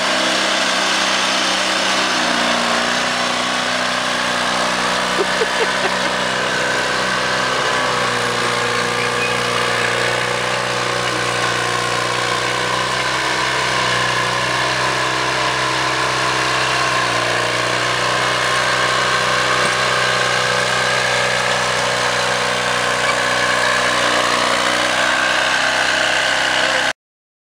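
Engine of a small John Deere crawler dozer running steadily as the machine blades and levels dirt, its pitch dipping and recovering a couple of times under load. The sound cuts off abruptly near the end.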